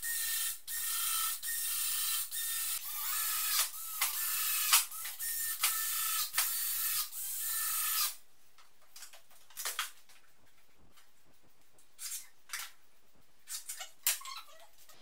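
Cordless drill running in a series of short bursts, its motor whine rising and dipping with each one. After about eight seconds it stops, and only a few light knocks and clicks follow.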